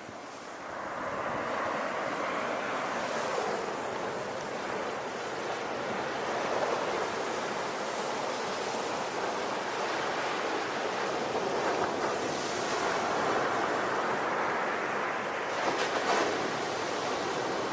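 Sea waves breaking and washing up the shore in a continuous rush, swelling about a second in and surging again near the end, with some wind.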